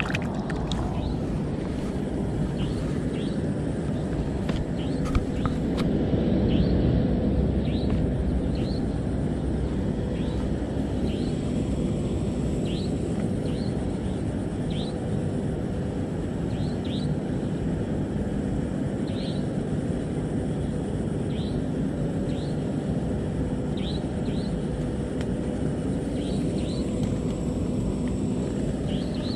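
Outdoor ambience: a steady low rumble that swells briefly about six seconds in, with short high chirps repeating every second or so.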